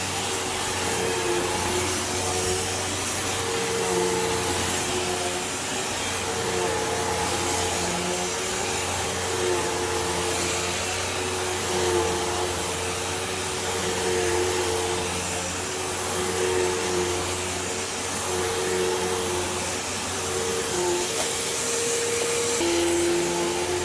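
Hoover Elite Rewind Plus upright vacuum cleaner running steadily: a loud rush of air over a motor hum that wavers slightly in pitch and loudness, with the motor pitch dipping near the end.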